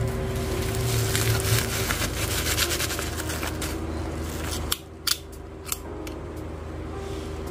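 Bubble wrap crinkling and rustling as a bubble-wrapped package is handled, then three sharp clicks about five seconds in as a plastic box cutter's blade is slid out.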